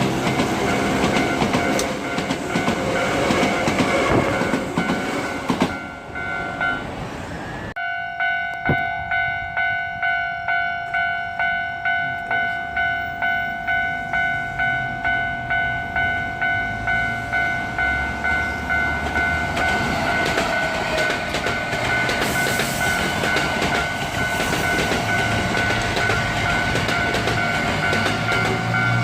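Level-crossing electronic warning bell ringing in a steady repeating ding, about one and a half strokes a second. Hankyu Takarazuka Line electric trains rumble and clatter over the crossing at the start and again in the second half.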